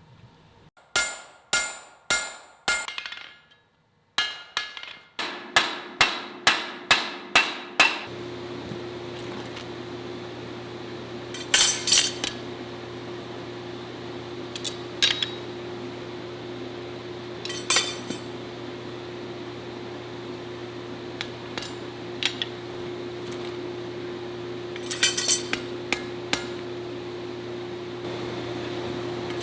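Hand hammer striking hot steel on an anvil, forging: a quick run of about five ringing blows, then about ten more at a steady beat. After that a steady hum and a lower drone carry on, with scattered single clanks of metal on metal.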